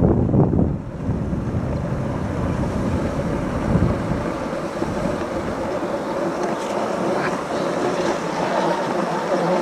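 Wooden toboggan's runners hissing and scraping over groomed snow while sliding downhill. Wind rumbles on the microphone for the first few seconds and dies away about four seconds in as the sled slows.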